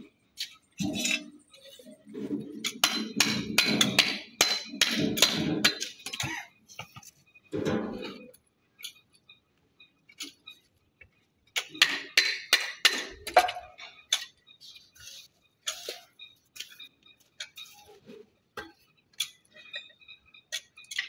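Mason's steel trowel clinking, tapping and scraping on flat natural stones and wet mortar as the stones are bedded into a crazy-paving floor. It comes in irregular clusters of sharp clinks and short scrapes with quiet gaps between.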